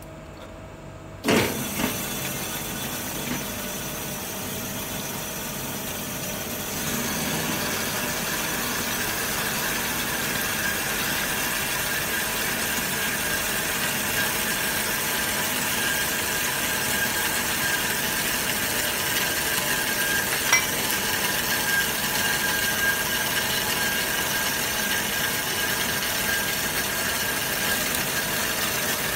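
Automatic metal band saw starting with a sudden jolt about a second in, then running steadily. From several seconds in it cuts through a solid steel round bar under coolant, and the sound grows louder, with a steady high whine over a hiss.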